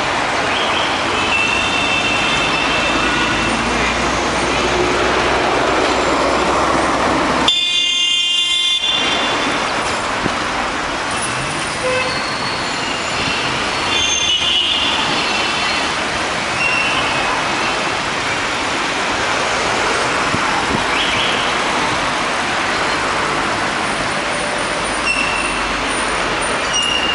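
City street traffic: the steady noise of passing cars and scooters, with short horn toots now and then and a longer horn blast about eight seconds in.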